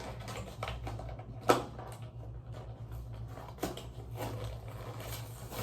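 A cardboard razor box being pulled and torn open by hand: scattered clicks and scrapes, with one sharper snap about a second and a half in, over a low steady hum.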